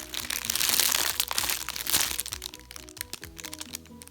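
Plastic packaging crinkling and crackling as a squishy toy is handled, loudest in the first half, over background music with steady notes.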